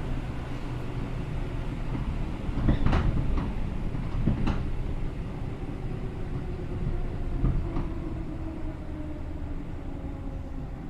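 Seibu New 2000 series electric train running, heard from inside the car: a steady rumble of wheels on rail with a few sharp knocks from the running gear over the track, loudest around three to four and a half seconds in.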